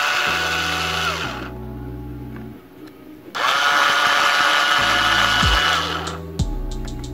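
Cordless drill-driver motor whining in two runs as it backs a jet out of a moped carburettor, its pitch falling away as it stops about a second in and again near six seconds. Background music with a beat runs underneath, and a few light clicks follow near the end.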